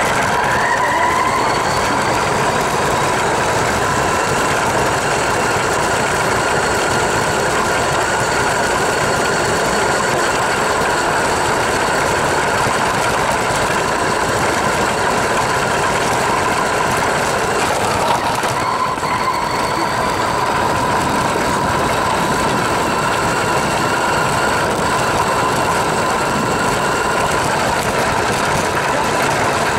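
Electric RC car's motor and drivetrain whining, with rushing noise, heard from a camera mounted on the car. The whine rises in pitch as it speeds up at the start, drops briefly about two-thirds of the way through, then climbs back and holds steady.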